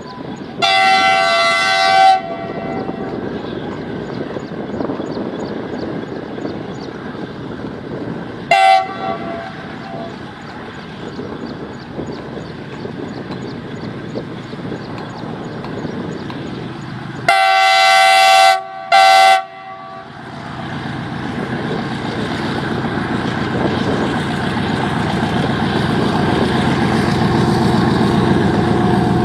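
WDG-6G diesel locomotive sounding its multi-tone air horn: one long blast near the start, a short toot about a third in, then a long and a short blast just past halfway, over the steady rumble of the moving train. After the last blast the locomotive's diesel engine drone grows steadily louder.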